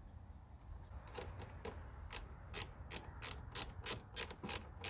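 Ratchet wrench clicking as the 10 mm nut holding a ground wire on the car battery terminal is tightened down, in even strokes of about three clicks a second. The clicks start faint and turn sharp about two seconds in.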